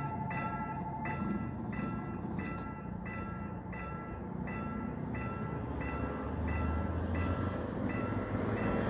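Railroad crossing's electronic warning bell dinging steadily about twice a second as the barrier comes down. A low rumble builds over the last few seconds as a train approaches.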